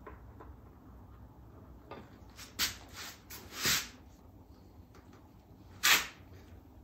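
Small hand work at a workbench: a few brief scraping, rustling sounds, the loudest about six seconds in, over a low room hum.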